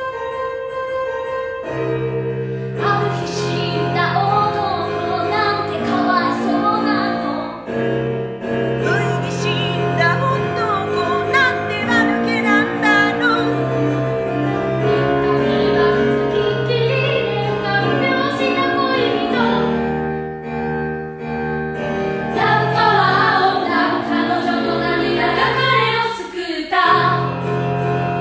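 Musical theatre song: piano accompaniment from the start, with a voice singing over it from about two seconds in. The singing eases off briefly around twenty seconds in, then resumes.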